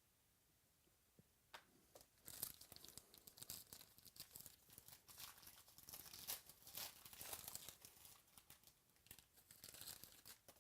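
Trading card pack wrapper being torn open and crinkled: a faint click, then a run of rustling, crackling tears and crumples.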